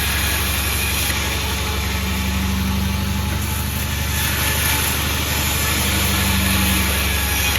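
Sawmill machinery running steadily: a constant low mechanical hum with a hiss over it, no change in load.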